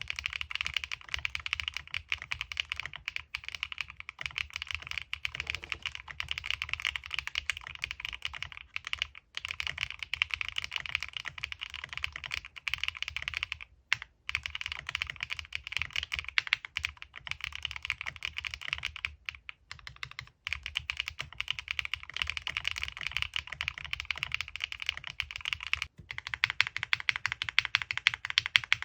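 Continuous fast typing on a Qwertykeys QK75 mechanical keyboard built with HMX Macchiato switches, a polycarbonate plate with plate foam only, and Osume Dalgona keycaps: a dense stream of keystroke clacks with a few short pauses.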